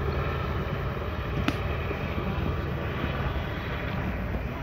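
Steady low mechanical rumble, like engines running, with a single sharp click about a second and a half in.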